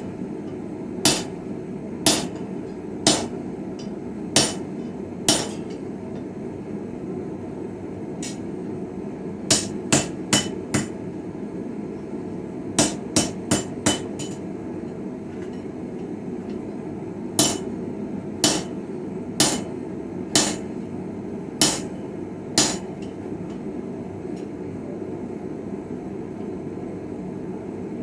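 Hand hammer striking steel on a small Viking-style anvil while forging a chisel: sharp ringing blows about once a second, in short runs with pauses between them, including a quicker run of four near the middle. A steady low rushing noise runs underneath.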